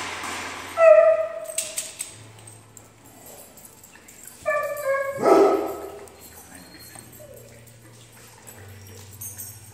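Dog barking: a short, high bark about a second in, then a quick run of barks around the middle.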